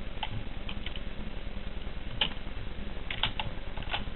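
Computer keyboard being typed on: irregular, unhurried keystroke clicks.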